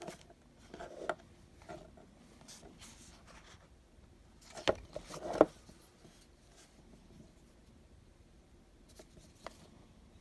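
Clicks and snaps from a SOG Tac-Au Compact automatic folding knife being worked in the hand, with two loud sharp snaps less than a second apart a little before halfway and a few fainter clicks around them.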